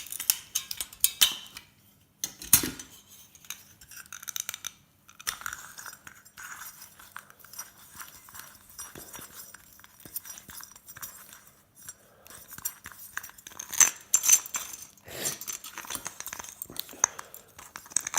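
Metal parts of an old light fitting, steel and cast metal, clinking and clattering as they are handled and worked apart by hand, in scattered sharp clinks and knocks. The loudest knocks come about two and a half seconds in and again around fourteen seconds, with quieter scraping and rubbing in between.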